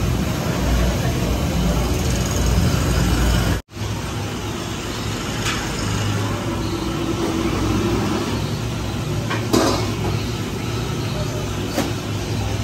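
Large gas burner under a big cooking pot, burning with a loud, steady low rumble. It cuts off suddenly and gives way to a quieter steady background rumble with a few sharp knocks.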